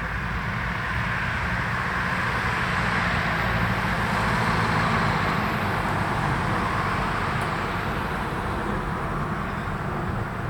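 A tram passing by: a steady rolling rumble that swells to its loudest about halfway through and then fades.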